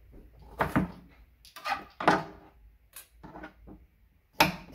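Chef's knife cutting fresh ginger on a plastic cutting board: a handful of irregular knocks and scrapes of the blade on the board, spaced unevenly.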